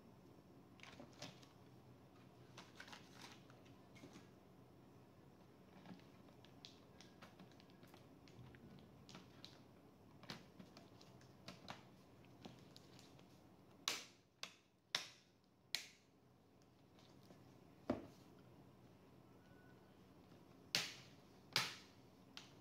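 Scattered light clicks, then a run of louder sharp snaps about two-thirds of the way in and two more near the end, from small plastic and metal laptop parts being handled while a Lenovo ThinkPad E14 Gen 4 is opened up for a RAM upgrade.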